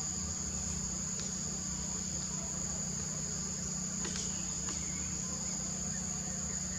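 Steady, high-pitched chirring of insects in the forest, unbroken throughout, over a low steady hum.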